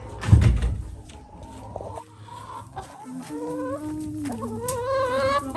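Farm animals calling: a low thump about half a second in, then two long, drawn-out calls in the second half, the second one wavering.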